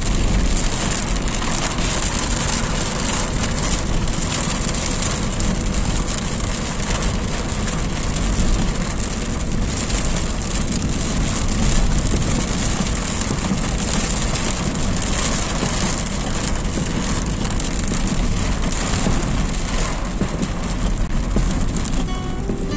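Steady heavy rain falling and pattering on surfaces, over a constant low rumble.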